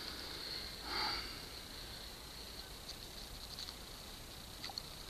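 Quiet handling of a dry grass and birch-bark tinder bundle holding a bow-drill ember: a soft rustling whoosh about a second in, then a few faint small clicks. A faint steady high tone runs underneath.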